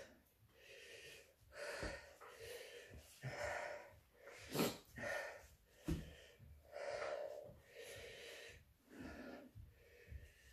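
A man breathing hard through the mouth against the burn of hot chilli peppers: a string of gasping, wheezy breaths about one a second, with one sharper, louder breath about halfway through.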